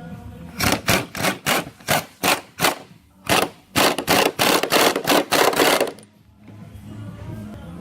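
A rapid series of loud, sharp knocks, about three a second at first, then faster and closer together, stopping about six seconds in.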